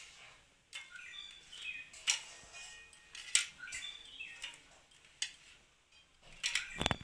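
A bird chirping in short falling phrases that repeat every couple of seconds, over scattered clicks and taps, with a louder clatter near the end.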